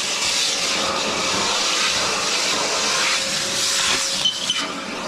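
Milwaukee M18 FUEL cordless backpack vacuum running, a steady rushing of air with a faint steady hum, and a couple of brief clicks near the end.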